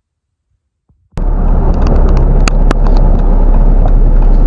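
About a second of near silence, then a vehicle being driven: a loud, steady low rumble of engine, road and wind noise that starts suddenly, with a couple of sharp clicks near the middle.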